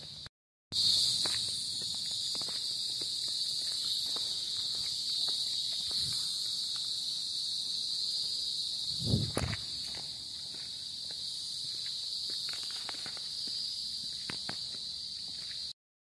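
Steady high-pitched insect chorus droning, with scattered footsteps on a concrete path and a brief low bump about nine seconds in. The sound drops out for a moment just after the start and again just before the end.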